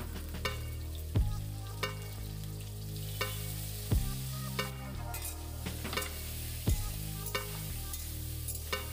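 Cut potatoes sizzling as they fry in hot oil in a kadai. Background music of sustained keyboard chords with a beat runs alongside, changing every second or so.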